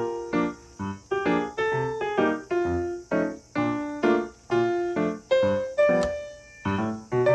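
Background music: piano-like keyboard notes struck in a steady rhythm, each decaying before the next.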